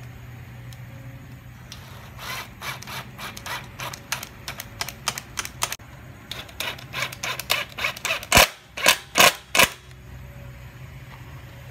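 Cordless power driver driving screws through a steel bracket into the board: two runs of rapid clattering about two seconds in and again midway, the second ending in four loud hard knocks as the screw seats.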